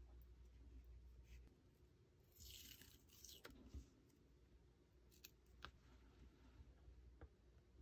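Faint sounds of washi tape handled: a short rasping peel as a strip is pulled off the roll about two and a half seconds in, followed by a few light ticks and taps as it is torn and pressed onto paper.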